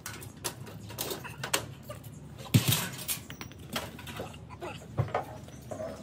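Scattered metal clanks and knocks of a welded steel window security grille being pulled off a brick wall and lowered, with a heavy thud about two and a half seconds in and another about five seconds in.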